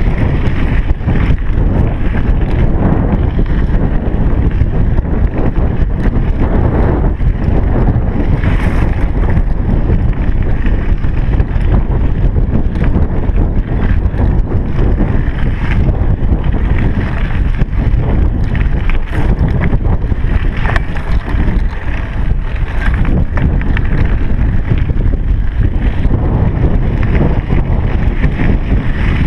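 Wind rushing over a chest-mounted GoPro's microphone while riding a bicycle: a loud, steady rumble with no pauses.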